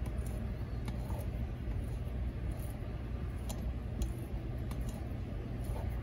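A few faint metal clicks of a T-handle hex key turning the intake manifold screws on an Echo two-stroke trimmer engine, over a steady low hum.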